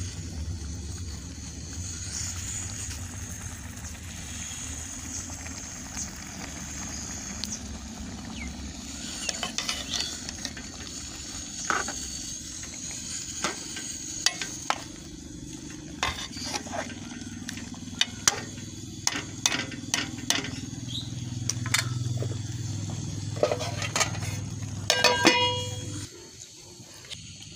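A steel spoon stirring curry in an aluminium karahi, scraping and clinking against the pot over a steady sizzle and a low rumble. The clinks come thick and fast from about a third of the way in, and the sound drops away abruptly near the end.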